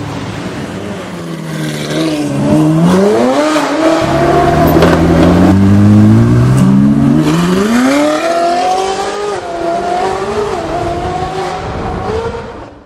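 Ferrari 458's V8 with an aftermarket valved Fi Exhaust system, revving and accelerating hard. Its pitch climbs steeply twice, once about two seconds in and again about six seconds in.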